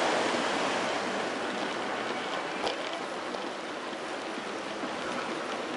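Steady wash of breaking sea surf, with a single short click about two and a half seconds in.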